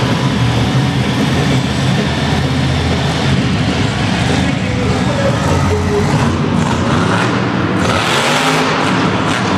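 Monster truck engines running loudly with a steady low rumble, one revving. A broad rush of crowd noise swells near the end.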